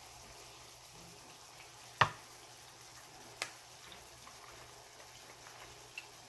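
Fish fillets frying in shallow oil in a pan, nearly done: a faint steady sizzle with a few sharp pops of spitting oil, the loudest about two seconds in and a smaller one a second and a half later.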